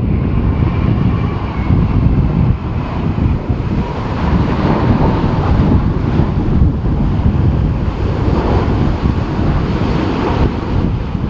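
Strong wind buffeting the microphone: a loud, steady, low rushing noise without a break.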